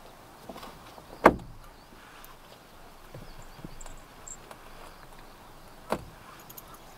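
Two sharp knocks, the first and louder about a second in and the second near the end, with a few faint clicks between.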